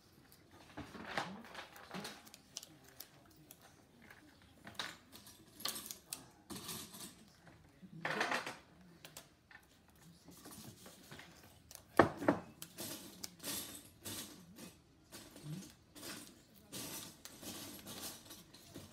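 Paper cut-outs being handled and pressed down on a tabletop craft: irregular rustling, scraping and small taps, with a brief rustle about eight seconds in and a sharp tap just after twelve seconds as the loudest sound.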